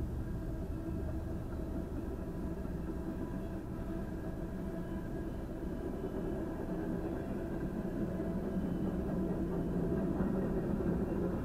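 A freight train of boxcars, tank cars and covered hoppers rolls past a crossing with a steady rumble of wheels on rail, heard from inside a stopped car. It grows a little louder near the end.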